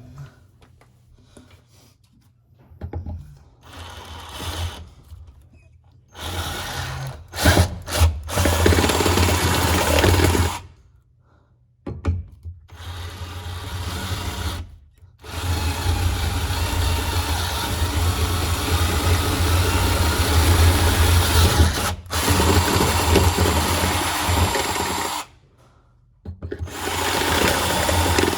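Power drill boring mounting holes for a shifter plate, running in several bursts with pauses between, the longest about ten seconds.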